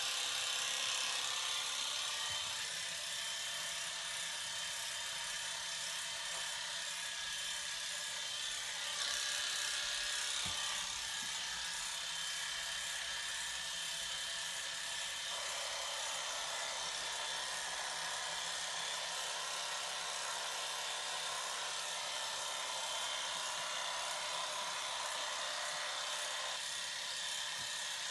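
Electric hair clippers buzzing steadily, their tone shifting slightly a few times.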